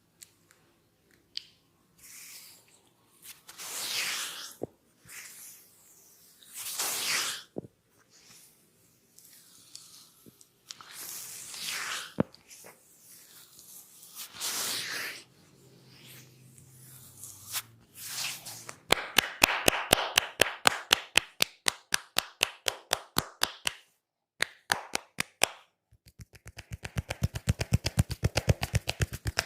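Hands working over a person's head, neck and skin in a barber's massage: swelling rubbing sounds with a few sharp single clicks. About two-thirds of the way through, a fast, even run of hand slaps at about six a second begins, then after a brief pause a faster run at about twelve a second.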